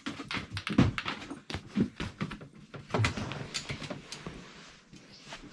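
Irregular knocks, thumps and rustling in a small room, the loudest about a second and three seconds in, dying down toward the end.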